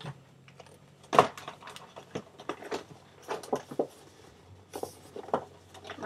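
A plastic bag of jigsaw puzzle pieces being handled in a cardboard box: scattered light knocks and rustles, the loudest about a second in.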